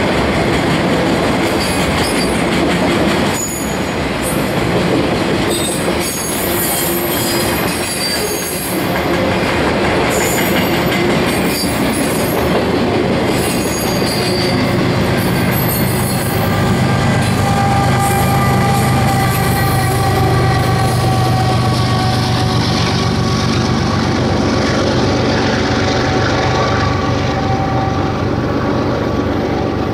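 Freight train of autorack cars rolling past, with wheel squeal and clickety-clack of the wheels over the rail. In the second half the squeal and clatter fade and a steady diesel locomotive drone with several held whining tones takes over, as the train's tail and its rear distributed-power locomotive go by.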